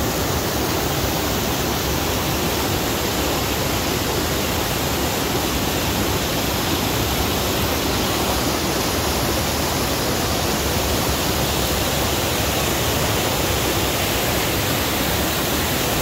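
Steady rushing of a waterfall and the whitewater stream tumbling over rocks at its foot.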